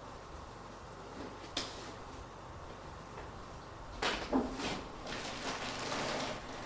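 Packaging being handled during an unboxing: one sharp click about a second and a half in, then from about four seconds on a run of scraping, rustling and knocking.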